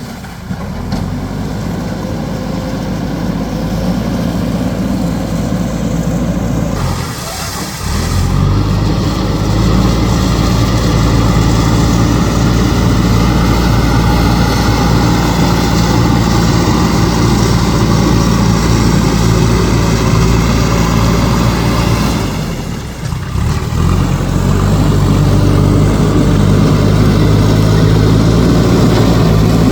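Diesel engine of a JCB backhoe loader running steadily as it works, with two brief dips, about seven and twenty-three seconds in, before the engine note picks up again.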